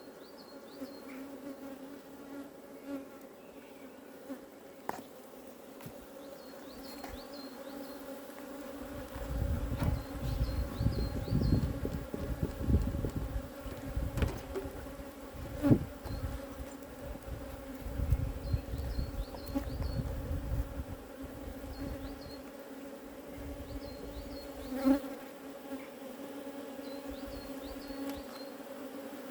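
Honeybees humming steadily around an open hive, a constant drone. A low rumble comes and goes through the middle, with a few sharp clicks and knocks, the loudest about two thirds of the way in.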